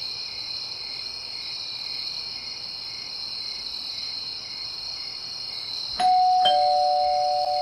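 Two-tone chime doorbell rung once near the end: a higher 'ding', then a lower 'dong' about half a second later, both left ringing and slowly fading. Before it, a steady high-pitched whine.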